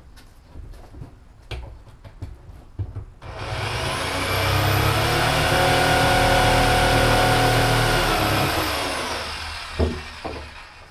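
Handheld corded power tool's electric motor spinning up about three seconds in, running at speed with a steady high whine for about five seconds, then winding down, with a sharp knock near the end.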